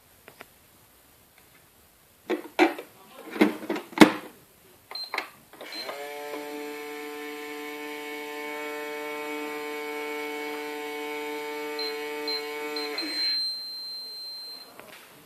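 Heating furnace: a run of knocks and clicks, then a steady hum with several pitches at once for about seven seconds that cuts off sharply. A thin high whine sounds near the end.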